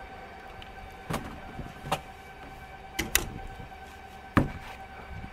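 Several sharp knocks and thumps on the deck of a small fibreglass sailboat as a fender is lifted aboard, the loudest about four seconds in, over a steady hum.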